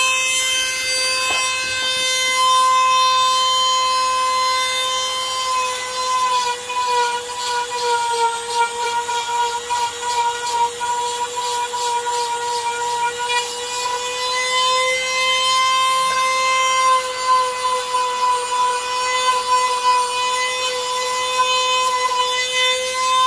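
A small high-speed power tool running with a steady high whine. Its pitch sags a little and the sound turns rough and uneven as it bears on the work.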